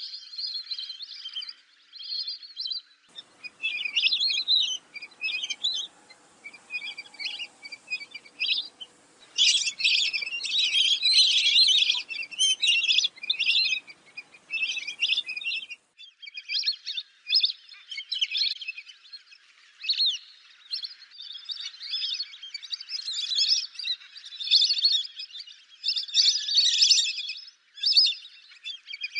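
A flock of lesser whistling ducks calling: high-pitched whistled calls in quick, chattering runs with short breaks, loudest about ten seconds in.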